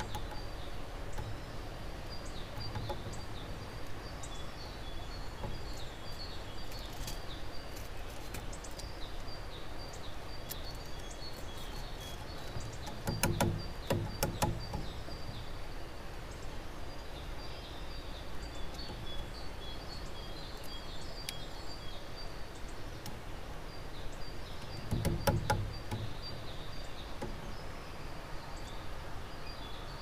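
Outdoor birdsong: a small bird repeats high chirping phrases over a steady background, with two short clusters of knocks about twelve seconds apart.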